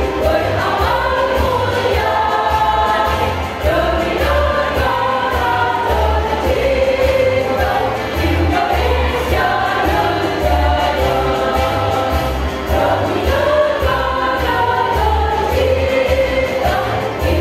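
Women's choir singing long held notes in several-part harmony over a pulsing low bass accompaniment.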